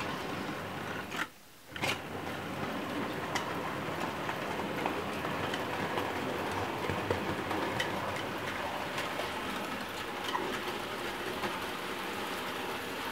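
Bachmann OO gauge model goods train hauled by an SR N class locomotive running past on the track: a steady rumble of wagon wheels on the rails with scattered small clicks. The sound drops out briefly about a second in.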